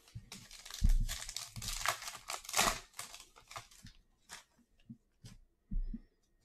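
A foil trading-card pack being torn open, its wrapper crinkling in a dense crackle for about four seconds. Then a few light clicks and a low thump as the cards are handled.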